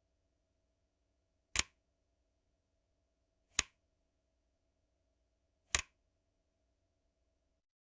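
A switch being flipped: three sharp clicks about two seconds apart.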